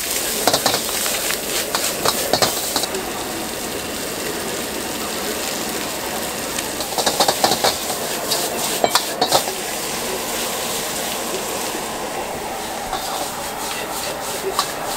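Noodles stir-frying in a wok over a high gas flame: a steady sizzle, with a metal ladle scraping and clinking against the wok. The clinks come in clusters, heaviest around seven to nine seconds in.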